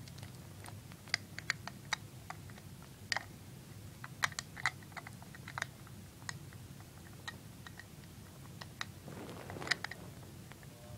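Irregular light clicks and taps of a combination padlock being handled while a shim cut from a soda can is worked into its shackle, with a brief rustle about nine seconds in.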